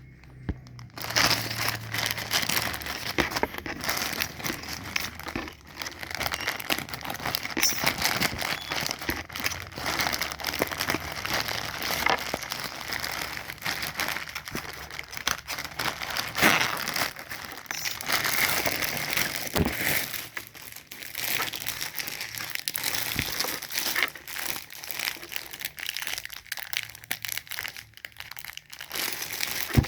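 Plastic packaging being crinkled and handled as a parcel is opened: a continuous crackling full of small clicks, starting about a second in and growing sparser in the last third.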